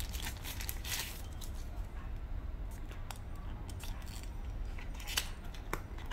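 Thin plastic bag rustling and crinkling as hands handle it and take out a clear silicone phone case, with scattered light clicks and taps.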